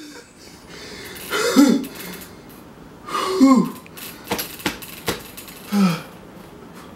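A person sneezing three times, a couple of seconds apart, each sneeze a short loud vocal burst that drops in pitch. A few sharp clicks come between the second and third.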